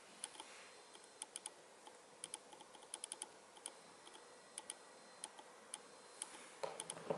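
Faint, irregular light clicks, a dozen or so scattered unevenly, with a brief soft rustle near the end.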